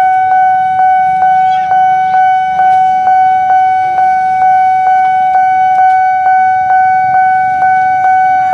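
Railway level-crossing warning bell ringing in rapid, evenly repeated dings of one steady pitch, each dying away before the next: the signal that a train is approaching and the barrier is closing.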